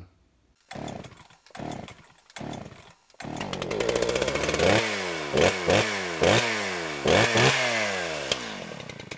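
A small petrol engine of the chainsaw kind, giving three short bursts before it catches and runs about three seconds in, then revving repeatedly, its pitch dropping away after each rev, and fading near the end.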